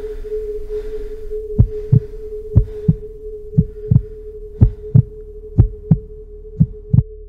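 Soundtrack of a steady held drone tone with a heartbeat laid over it: pairs of low thumps, lub-dub, about once a second, starting about a second and a half in.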